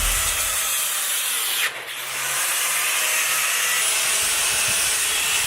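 Angle grinder with an abrasive cutoff wheel cutting through the steel frame tubing of a Yamaha XS650: a steady, harsh grinding hiss that drops away briefly about two seconds in, then carries on.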